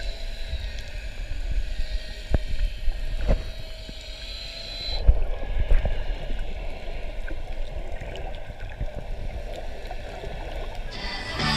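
Underwater sound through an action camera's waterproof housing: a muffled wash of moving water with low rumble and a few sharp knocks. The sound changes abruptly about five seconds in, and music starts just before the end.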